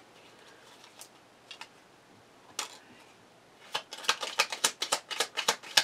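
Tarot cards being handled over a wooden table. At first there are a few isolated soft taps. From about two-thirds of the way in comes a quick, even run of light clicks, several a second, as the deck is shuffled.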